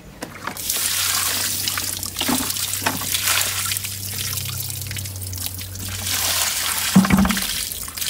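Dirty, soapy wastewater pouring from the recovery tank of a BTA upholstery extraction cleaner and splashing onto soil, starting about half a second in. A single thump about seven seconds in.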